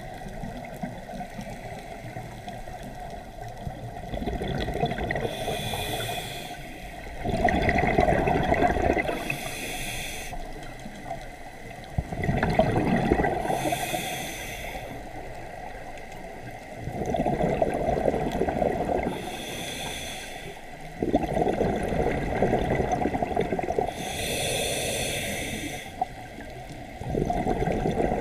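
Scuba diver breathing through a regulator underwater: a short hissing inhale, then a louder rush of exhaled bubbles, repeating about five times at a slow, even pace.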